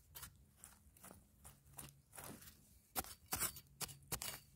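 Metal digging spade chopping and scraping into dry, stony soil: a run of sharp crunching strikes at an irregular pace, coming thicker near the end.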